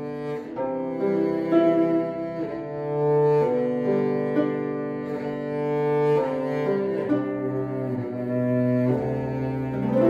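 Cello and harp duet: the cello plays a bowed melody of held notes that change every half second or so, with the harp plucked alongside.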